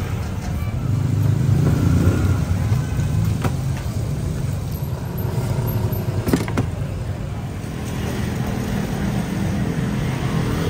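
Steady low rumble of road traffic, with a few sharp knocks, two of them close together a little past halfway.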